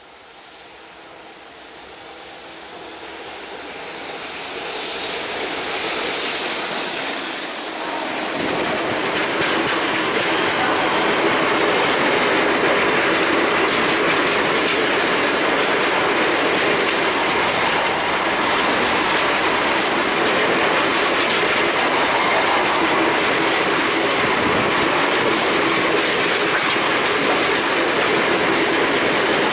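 Freight train passing at speed. It grows steadily louder over the first six seconds or so as it nears. Then a long line of loaded open freight wagons rolls close by with a steady rolling rumble and the clatter of wheels over the rail joints.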